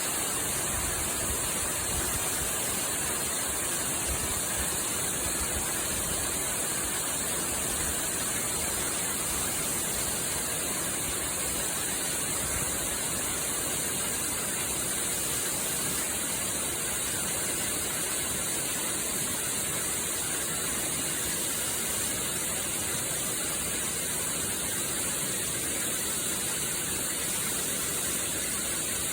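Waterfall: water pouring without a break, a steady rushing hiss that is strongest high up and never changes in level.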